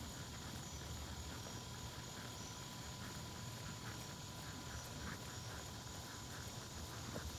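Steady chorus of field insects chirring on a summer evening, over a low, even rumble.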